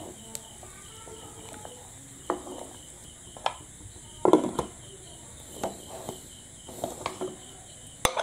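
Aluminium pressure cooker being stirred and closed: a series of metal clinks and knocks as the lid is set on and locked, the loudest about four seconds in, with a sharp metal click near the end at the vent.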